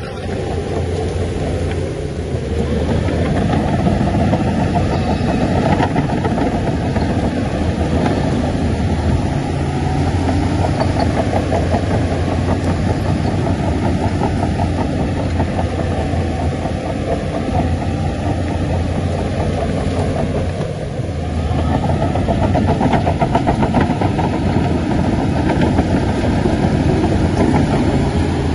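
Heavy diesel engine of an earthmoving machine running under load. It works harder a few seconds in, eases briefly about two-thirds of the way through, then picks up again.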